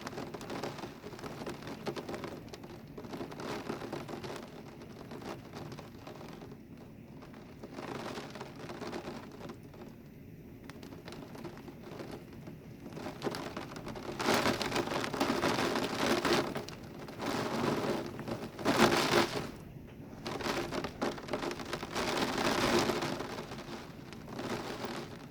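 Heavy thunderstorm rain pouring down in a gusty squall. Several louder surges about halfway through and toward the end, rising and falling over a second or two each.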